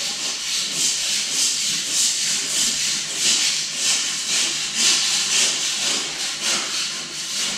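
Repeated scraping strokes on the floor, about two a second, during floor work after the carpet has been pulled up; the sound cuts off suddenly at the end.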